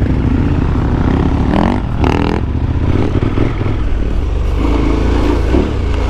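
KTM 1290 Super Adventure S V-twin engine running as the motorcycle rides along a dusty dirt track, with a brief rise and fall in pitch about two seconds in.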